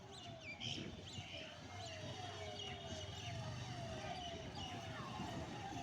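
Birds calling: a low note that slides down, repeated about twice a second, among higher chirps. A low steady hum runs underneath through the middle.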